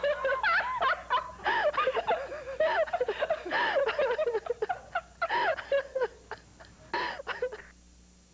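Two women laughing together, long and open-mouthed, trailing off and fading out near the end.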